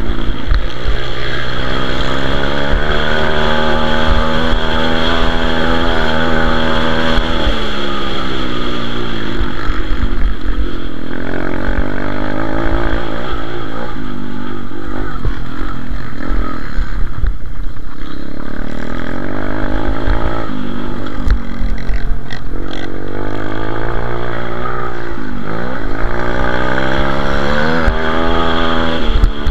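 Pit bike engine revving hard under way, heard close up from the bike itself. Its pitch climbs and falls over and over as the throttle is opened and shut through the gears and corners, dropping off around seven seconds in and again about twenty-five seconds in before climbing once more near the end.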